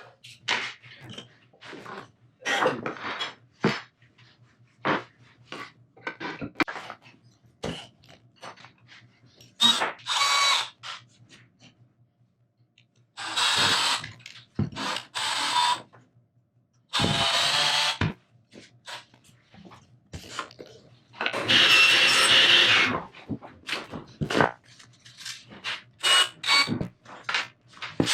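Power drill running in several short bursts of about a second each, with clicks and knocks of handling in between.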